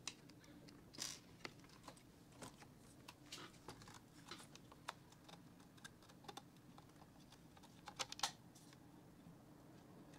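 Faint, scattered clicks and taps of laptop cooling fans, a heatsink and plastic parts being handled and set in place, with a few short rustles. A small cluster of louder clicks comes about eight seconds in.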